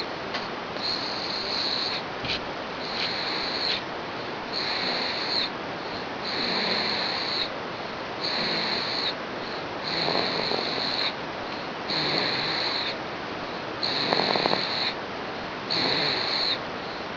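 A pet snoring in its sleep: a high, whistling snore on each breath, each about a second long and coming roughly every two seconds.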